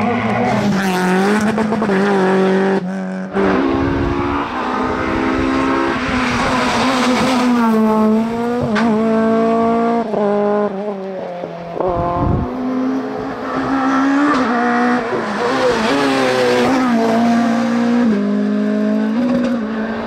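Rally car engines run hard at high revs. The pitch climbs and drops again and again as the drivers change gear and lift off the throttle, with a short drop in level about three seconds in.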